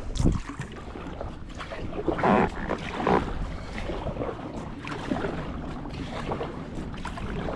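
Kayak paddle strokes splashing in the water, the two loudest splashes about two and three seconds in, over a low rumble of wind on the microphone.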